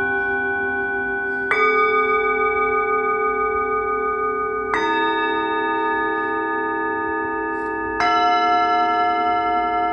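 Small hand-hammered Nepalese singing bowls struck in turn with a mallet. There are three strikes about three seconds apart, and each new bowl's ring layers over the long, lingering hum of the bowls struck before.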